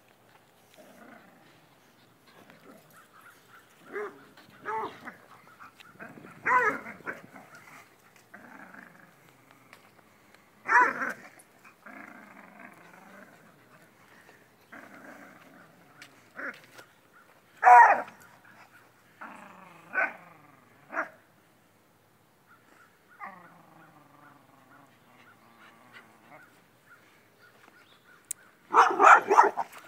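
A beagle and a larger dog growling in play as they tug a rope toy between them, with several short, loud barks scattered through, the loudest cluster near the end.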